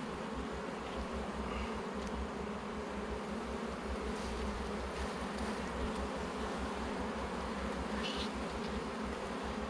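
Honeybee colony buzzing in an open hive: a steady, even hum.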